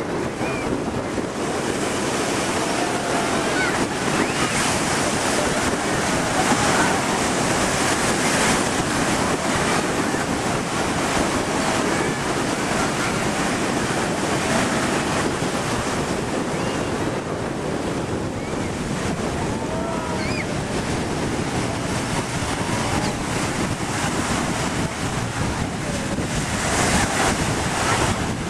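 Steady wind buffeting the microphone over the wash of the sea, with a jet ski's engine faint beneath it.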